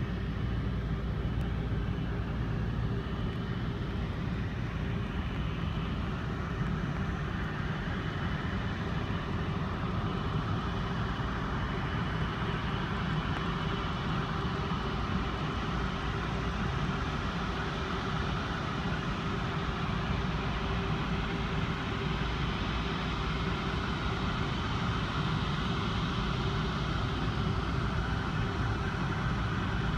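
Distant Airbus A330 jet engines (Rolls-Royce Trent 700) running on the runway: a steady low rumble with a faint high whine.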